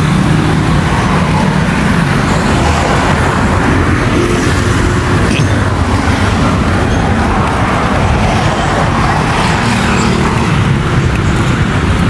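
Steady, continuous road traffic noise: a mix of vehicle engines and passing cars.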